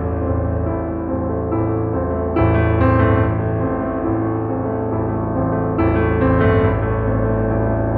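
Background piano music, with a new chord struck about every three and a half seconds over a held low bass.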